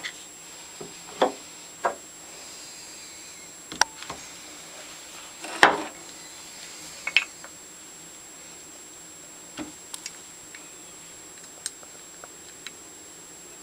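Small metal parts of a Stanley No. 113 compass plane being handled and oiled on a workbench: scattered light clicks and taps, the loudest about six seconds in.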